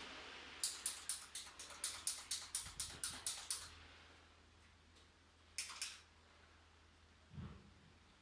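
A quick run of light, sharp clicks, about four a second for some three seconds, then a pair of clicks and a soft knock near the end.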